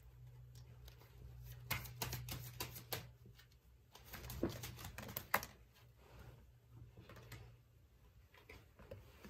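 Tarot cards being shuffled and handled: irregular soft clicks and taps of card stock, coming in two flurries, over a steady low hum.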